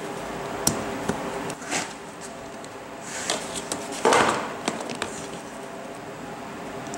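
Hands working inside an open suitcase: the fabric lining rustles and the telescoping handle parts give a few scattered knocks and clicks, the loudest just after four seconds in, over a faint steady hum.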